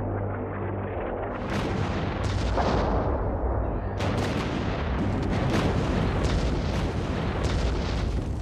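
Battle sounds of artillery and rifle fire: a low rumble, then from about a second and a half in many sharp shots and blasts, coming thicker from about four seconds in.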